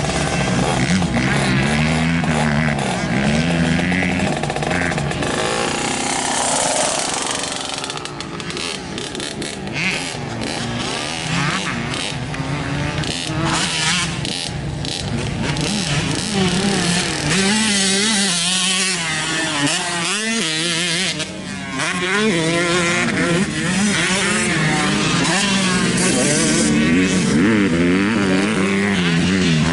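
Several off-road race engines on a dirt motocross track revving up and down as riders go round and over jumps, their pitches rising and falling and overlapping.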